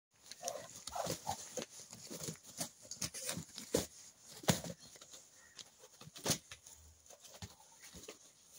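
A Muscovy duck and a rooster fighting: wings beating and bodies scuffling on dirt, with irregular sharp slaps and blows.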